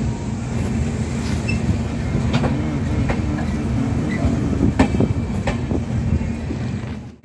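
Passenger train running on the rails: a steady low rumble with a few sharp clicks from the wheels. It cuts off suddenly near the end.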